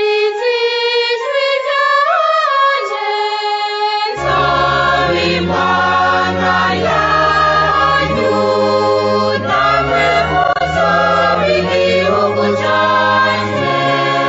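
Choir singing a hymn. A single high melody line sings alone for about the first four seconds, then lower voices come in and the choir continues in full harmony.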